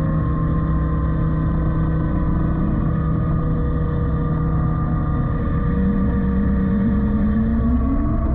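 A Yanmar Vio-80 mini excavator's diesel engine and its Lipa TLE-FS 90 hydraulic forestry mulcher running steadily. A whine rises in pitch from about six seconds in.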